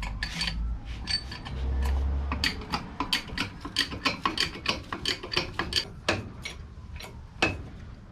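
Hydraulic bottle jack being pumped by hand under the frame rail: quick repeated clicking strokes, about three or four a second, after a low rumble, with one sharper click near the end.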